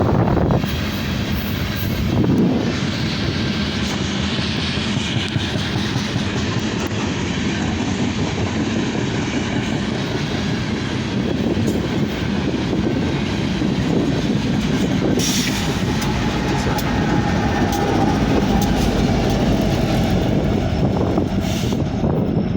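Loaded coal cars of a BNSF unit coal train rolling past close by: a steady, loud rumble with the clatter of steel wheels on the rails.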